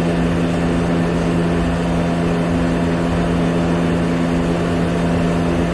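Steady machine drone with a constant low hum, unchanging throughout: background noise that drowns out the hand-unscrewing of the oil filter.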